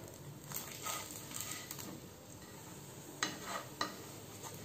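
Parotta frying in oil in a nonstick pan with a faint, steady sizzle. A few short scrapes and taps of wooden spatulas against the bread and pan come through, the loudest a little past three seconds in.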